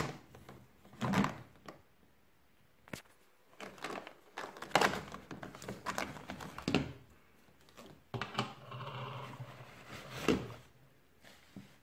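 Handling noise: scattered knocks and clicks of plastic as a corrugated plastic drain hose is pushed into place through a BEKO dishwasher's plastic base frame, with a stretch of rustling about eight to ten seconds in.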